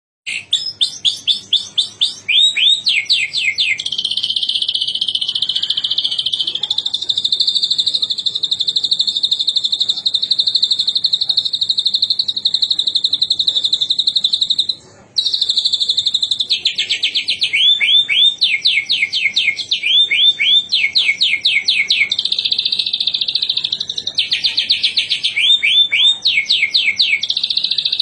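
White-rumped shama (murai batu) singing a long rolling trill. A rapid, unbroken trill runs for about ten seconds, stops briefly about halfway through, then resumes. It alternates with runs of quick downward-sweeping whistled notes.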